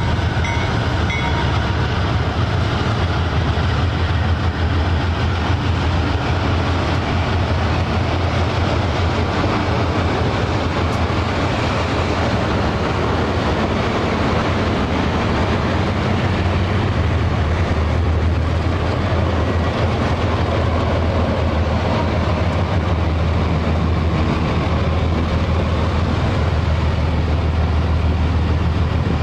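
Freight train hauled by several diesel-electric locomotives passing close by, their engines making a steady, loud low drone over the noise of the train on the rails.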